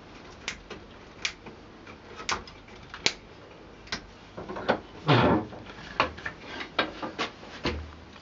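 A small knife cutting chips from the wooden shoulder of a walking-stick shank around its dowel: a run of sharp, irregular clicks as the blade bites into the wood, with a longer scraping cut a little past halfway.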